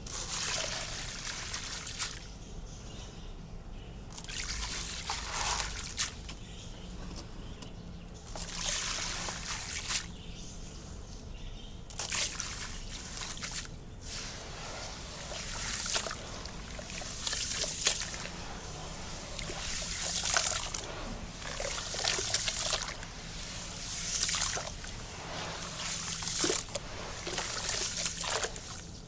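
Black concrete being poured into water, in short pours of a second or two that trickle and splash, repeating every two to three seconds with brief lulls between.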